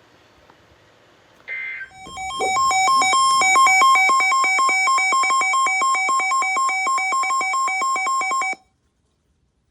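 Electronic alert tone that beeps rapidly back and forth between two pitches for about six seconds, then cuts off suddenly. It is preceded by a short buzzy burst, the kind of signal that sits between weather-radio alert messages.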